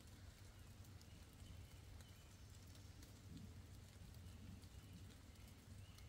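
Near-silent forest ambience in light rain: faint scattered drips and a few short, faint high bird chirps over a low steady hum.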